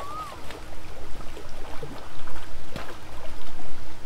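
Water splashing and sloshing at the lake's edge, with a short rising-and-falling whistled note at the very start.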